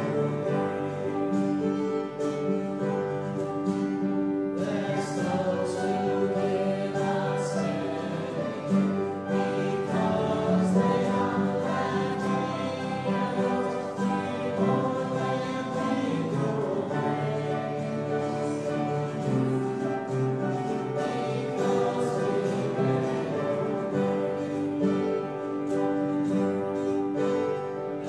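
Voices singing a slow congregational hymn verse by verse, with instruments accompanying.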